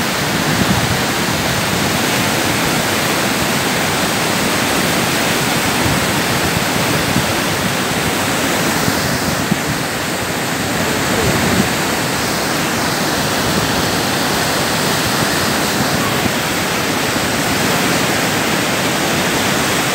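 Large waterfall in flood, a heavy brown torrent pouring over the drop and churning in the pool below. It makes a steady, loud rush of water with no break.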